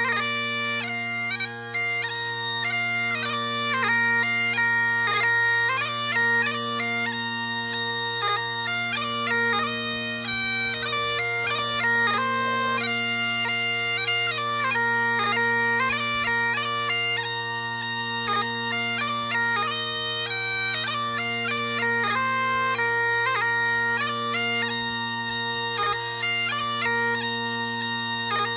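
Bagpipes playing a tune: a quick chanter melody with grace notes over steady, unbroken drones.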